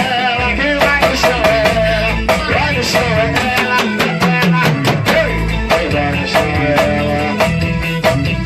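A live band playing an instrumental passage: a drum kit keeping a fast, steady beat under a bass line and a wavering melodic lead.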